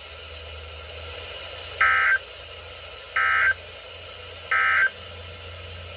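Emergency Alert System end-of-message code over weather radio: three short, harsh digital data bursts about 1.4 seconds apart over a steady low hum, signalling the end of the alert.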